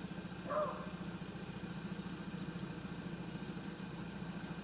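Volkswagen Mk6 GTI's 2.0-litre turbocharged four-cylinder engine idling roughly with a misfire. A brief high chirp cuts in about half a second in.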